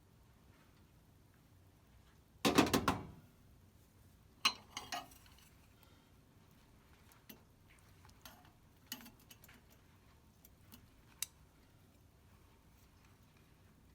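A short, loud clatter of clicks and knocks about two and a half seconds in, a smaller one near five seconds, then a few faint scattered ticks in a quiet room.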